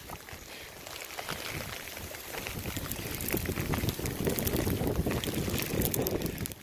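Wind rumbling on the microphone, with scattered light crunches and scuffles of dogs' paws moving in snow.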